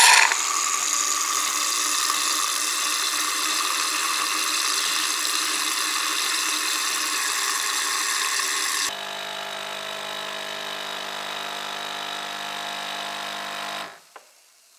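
Automatic espresso machine making a cappuccino: a loud steady hiss as its frother foams the milk, then abruptly, about nine seconds in, a quieter steady pump hum as espresso pours into the milk, cutting off near the end.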